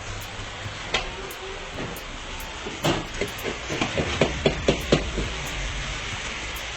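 Steady sizzling hiss from a karahi of chicken cooking over high heat. About three seconds in, a quick run of around ten sharp metal strikes, coming faster as they go, like a ladle scraping and knocking against the pan while stirring.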